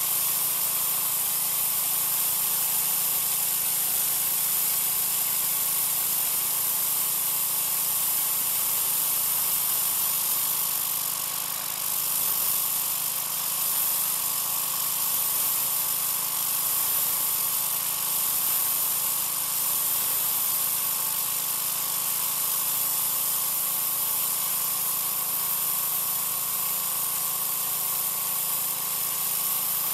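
Troy-Bilt 2200 psi gas pressure washer running steadily, its engine under the hiss of the water jet from an oscillating tip blasting concrete, with a slight dip about twelve seconds in.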